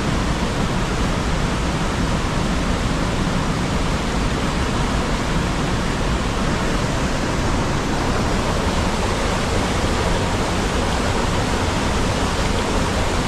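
A waterfall running high after two days of rain: loud, steady rushing of falling water.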